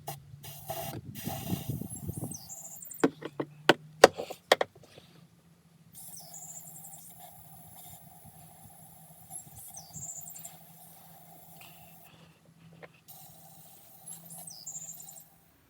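Birds chirping in short high calls every few seconds over a steady low hum, with a handful of sharp clicks and knocks in the first few seconds, the loudest near four seconds in.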